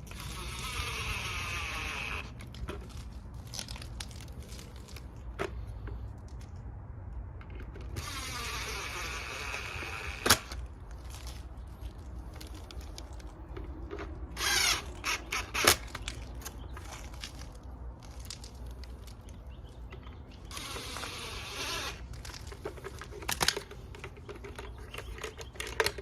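Power drill running in four short bursts, with clicks and knocks of handling between them.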